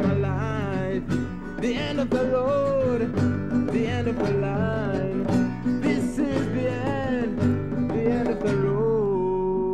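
Early-1970s demo recording played from an acetate disc: a guitar-based folk-country song in a passage without words, a wavering, gliding lead melody over steady low accompaniment, ending on a long held note.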